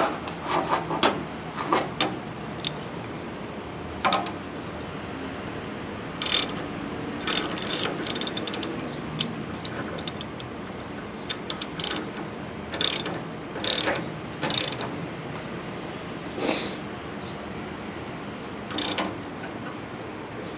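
Ratchet wrench clicking in short bursts of strokes as a nut is turned on a threaded-rod bushing press to draw a leaf spring bushing through.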